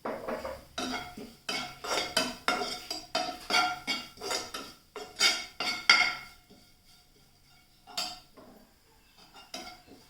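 A spoon stirring chicken pieces and spices in a cooking pan, clinking and scraping against it in quick strokes for about six seconds, then a few single knocks.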